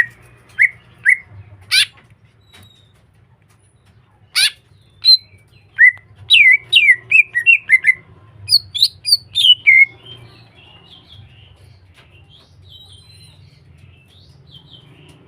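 Cucak hijau (green leafbird) singing: rapid runs of loud, clear whistled notes that slide up and down, broken by a couple of sharp, harsh notes. Its song falls to softer chattering for the last few seconds.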